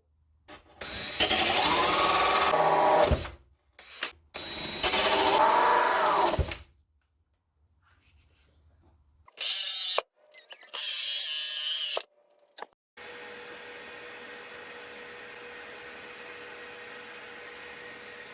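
Power drill boring pilot holes in a wooden boat hatch in several bursts of a few seconds each, the motor's pitch rising and falling within each burst. For the last few seconds a steady, quieter hum with a faint tone runs on.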